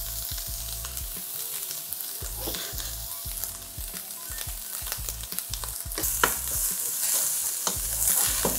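Minced beef and onions sizzling as they fry in a pot, with a wooden spoon stirring and scraping through them; a few sharper scrapes of the spoon come in the last few seconds.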